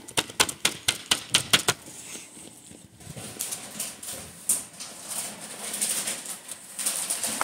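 A marker tip tapped down on paper in a quick run of about a dozen taps, then, after a short pause, rubbing and scratching across the paper as it colours in.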